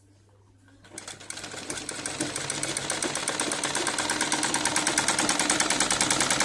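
Domestic sewing machine starting up about a second in and stitching a straight seam along a folded hem, a fast even clatter of needle strokes that grows steadily louder.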